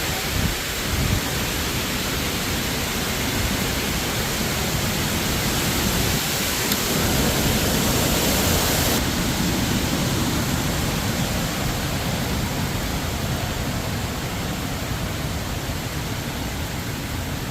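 Hurricane Helene's storm wind rushing and gusting hard, buffeting the microphone. It swells about six seconds in and eases a little after about nine seconds.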